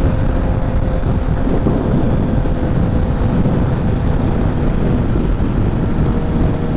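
Strong wind buffeting the microphone in a heavy, steady rumble, over a Honda CBR650F's inline-four engine running with an even tone while riding through a windstorm.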